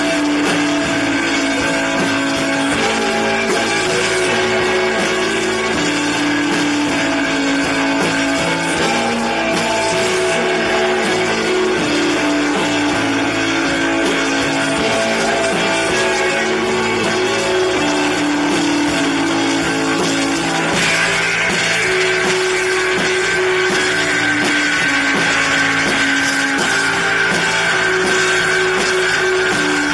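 Live rock band playing loud, with electric guitars and a drum kit; held, sustained guitar notes change pitch every second or two over a dense, steady wash of sound.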